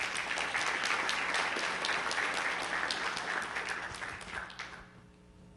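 Audience applauding: dense clapping that dies away about five seconds in.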